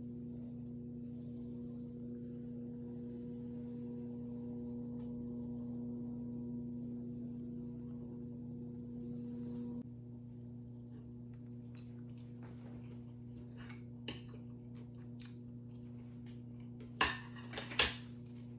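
A steady low hum, which drops in level about halfway through. Then light clicks of cutlery and dishes on a plate, with two louder clatters near the end.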